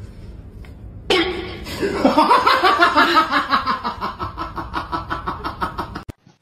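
A person laughing hard in rapid, rhythmic bursts. It starts about a second in and stops shortly before the end.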